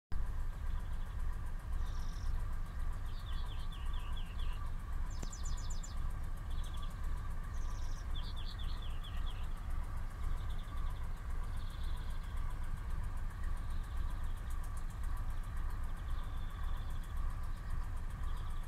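A steady low rumble with a faint even hum under it, while a small bird sings short trilled phrases every few seconds.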